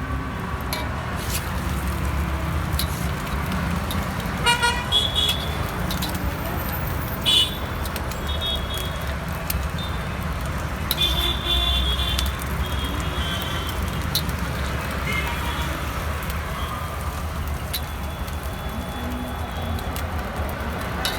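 Street traffic running past with a steady low rumble, and vehicle horns tooting several times in short blasts.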